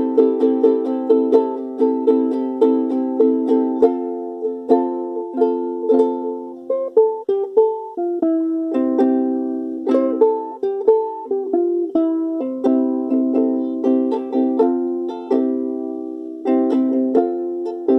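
Solo ukulele playing, no singing: quick strummed chords at first, then after about six seconds slower, more spaced chords and picked notes with a few short breaks.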